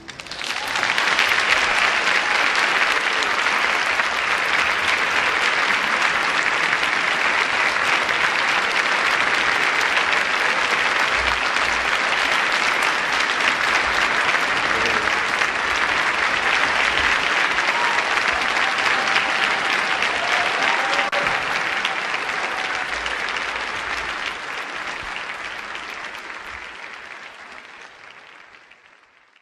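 Audience applauding, swelling up in the first second after the orchestra stops, holding steady for about twenty seconds, then fading away over the last several seconds.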